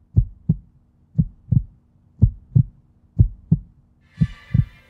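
Heartbeat-like low double thump, lub-dub, about once a second, over a steady low hum. A brighter sound joins near the end.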